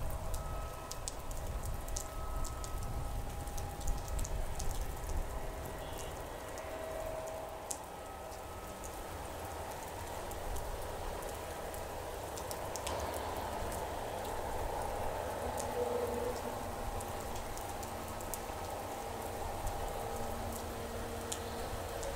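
Heavy rain falling, with sharp ticks of drops striking close by over a low, even rumble. Most of the ticks come in the first few seconds. A faint steady hum of machinery runs underneath.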